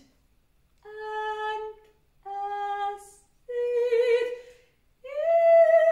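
A woman's voice singing improvised wordless notes: four long held tones with short breaks between them. The third wavers, and the last slides up into a higher pitch and is the loudest.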